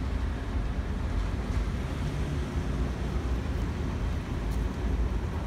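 Steady low rumble of street ambience: wind buffeting the phone's microphone mixed with city traffic noise.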